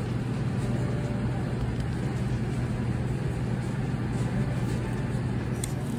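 Steady background noise of an airport terminal: a continuous low hum with a hiss above it, and no distinct events.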